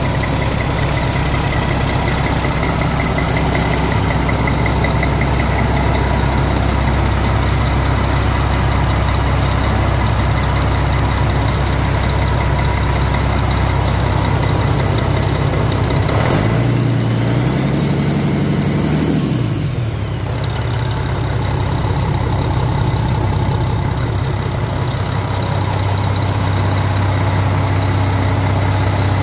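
1998 Mack E7-300 inline-six diesel engine idling steadily on a test run, its note briefly shifting up and settling back a little past halfway.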